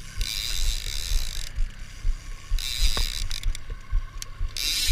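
Line-counter trolling reel cranked fast in three spurts of whirring and ratcheting, as a hooked fish is reeled in: a long first spurt, a short one midway, and another starting near the end.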